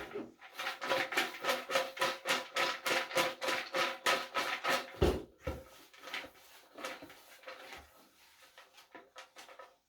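A raffle draw spinner ticking rapidly, about five ticks a second, then slowing and fading over the last few seconds as the draw comes to a stop.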